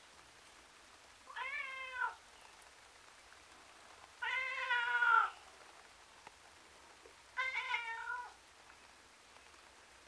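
A tomcat meowing miserably three times. Each call lasts about a second, the calls come about three seconds apart, and the middle one is the loudest.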